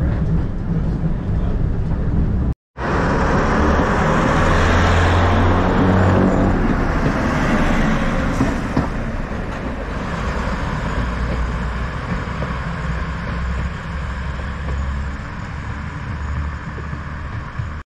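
A train running, a loud steady rumble with a low hum and a hiss. It cuts out for a moment about two and a half seconds in.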